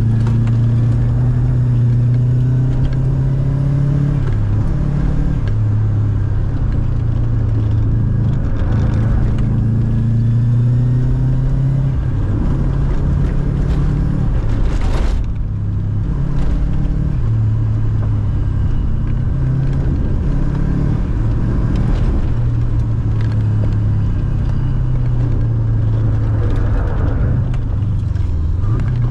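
Subaru Impreza GC8 GT's turbocharged flat-four engine heard from inside the cabin under hard driving, its revs climbing and dropping back again and again through gear changes. There is a short sharp noise about halfway through.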